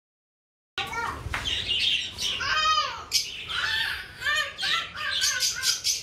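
A flock of budgerigars chirping and chattering, many calls overlapping in quick, busy bursts; the sound cuts in suddenly about a second in.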